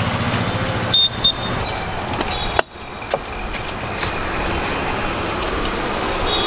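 Street traffic noise: a steady road hum with two short high beeps about a second in, and a brief cut-out near the middle.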